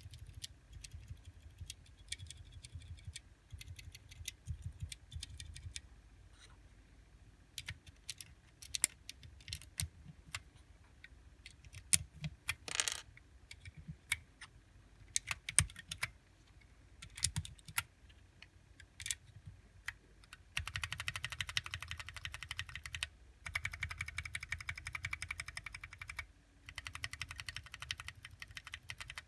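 Tactile mechanical keyboard switches (Zealios 67g, Gateron Clear and Cherry MX Clear) clacking as keys are pressed. At first they come as scattered single presses, then about two-thirds in they turn into rapid, continuous typing.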